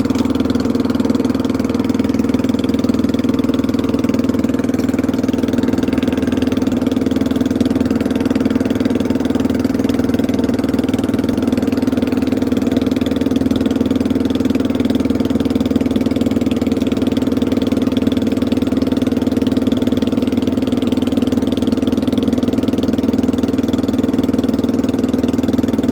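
Small fishing boat's engine running steadily at constant speed, with no change in pitch or level.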